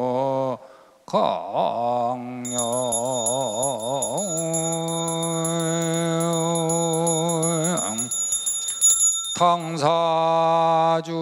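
A man's voice sings a Korean Buddhist ritual chant in long held notes with a wavering pitch. From about two seconds in until near the end, a small handbell is shaken rapidly alongside the chant.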